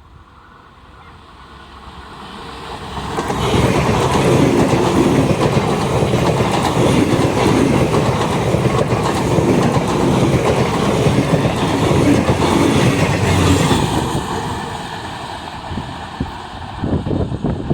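Passenger train passing close by at speed, its wheels running over the track. The sound builds over the first few seconds, stays loud for about ten seconds, then eases off.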